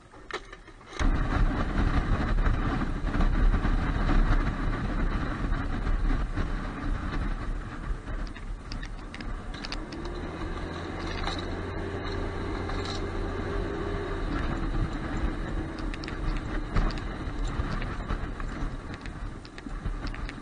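Armoured vehicle's engine opening up abruptly about a second in and running loud as the vehicle drives off, with a heavy rumble heard from on top of the hull. From about halfway through, the engine settles into a steadier drone.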